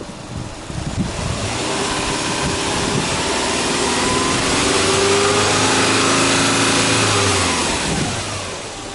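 Subaru Legacy 2.5GT's turbocharged 2.5-litre flat-four (boxer) engine being free-revved with no load. The revs climb from about a second in, hold for a couple of seconds, then drop back toward idle near the end.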